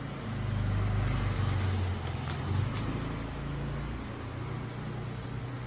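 A motor vehicle's engine running steadily with a low hum, louder for the first couple of seconds and then settling a little quieter.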